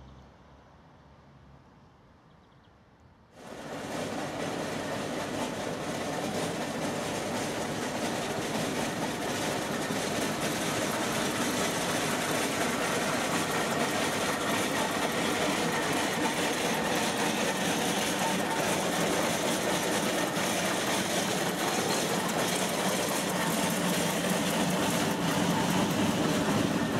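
Steam traction engine running along a road: a steady mechanical clatter that starts abruptly about three seconds in and grows a little louder near the end.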